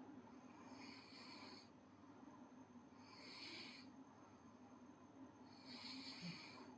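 A sleeping girl snoring faintly: three soft, breathy snoring breaths, about two and a half seconds apart.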